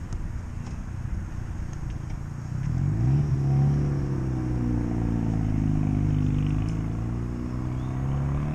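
A car's engine accelerating past, its note rising about two and a half seconds in and then holding steady. Underneath runs a low rumble of wind noise on the microphone.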